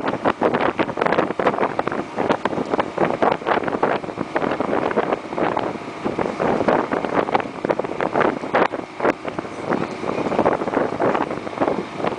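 Wind buffeting the microphone in rapid, irregular gusts, from the headwind on a boat under way.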